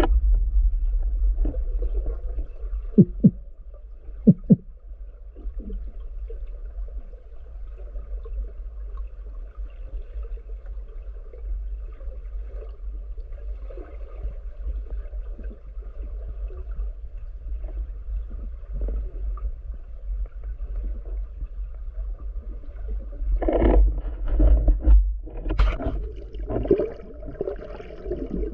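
Underwater sound picked up by a diving camera: a steady low rumble of water moving against the housing, with two sharp knocks about three and four seconds in. The water noise swells louder and busier for the last five seconds.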